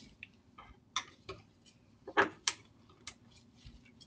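Irregular sharp clicks and small metallic knocks of a front door's handle and lock being worked by hand, with the loudest ones a second in and twice more about halfway through.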